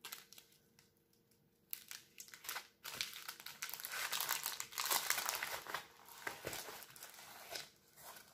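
Plastic and paper crinkling and rustling as a rolled diamond painting canvas and its bags of drills are handled and rolled up. It starts about two seconds in and is loudest around the middle.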